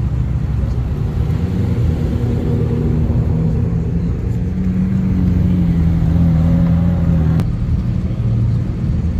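Car engine running at low revs with a steady low rumble. Its pitch rises a little for a few seconds, then drops off abruptly about seven seconds in.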